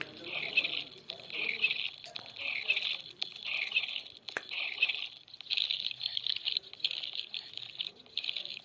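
Night chorus of frogs and insects: pulsed frog calls about once a second over a steady high insect trill, which changes character about five seconds in.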